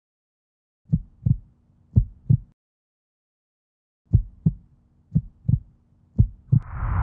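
Heartbeat sound effect: deep lub-dub double thumps, two beats, a short silence, then three more beats. Just before the end a loud rushing whoosh starts to swell.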